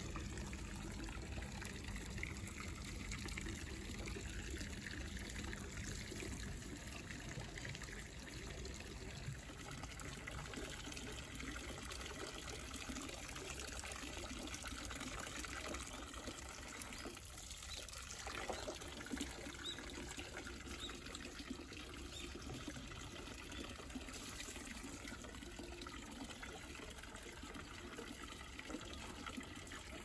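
Water pouring in a thin stream from a spout into a plastic tub of water, a steady trickle and splash. It dips briefly a little over halfway through.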